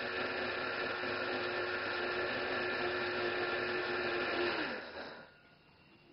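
Electric blade coffee grinder running steadily as it grinds dried Jerusalem artichoke slices toward a flour-like powder. About four and a half seconds in it is switched off and its motor winds down to a stop, its tone falling.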